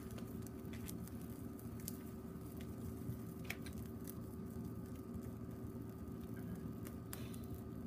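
Meat grilling on a wire mesh over glowing charcoal in a shichirin: scattered, irregular sharp crackles and pops over a steady low hum.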